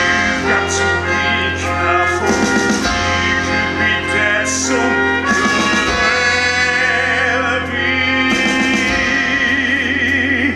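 Live pit-orchestra music from a rock-musical stage performance, brass to the fore, with long held notes; in the last few seconds a high note wavers with vibrato.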